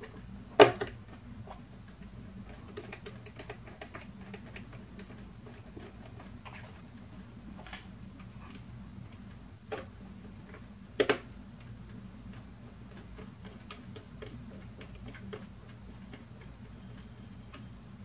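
Small screwdriver turning the screws of an Intel NUC's bottom cover and working them into the case: a run of faint irregular clicks and ticks, with a couple of louder sharp knocks about half a second in and about eleven seconds in. A faint steady low hum sits underneath.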